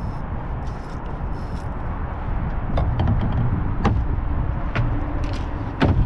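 Steady low rumble of wind and water around a kayak, with a series of sharp clicks and knocks from about halfway through as a small hooked bass is lifted from the water and handled on the line; the loudest knock comes near the end.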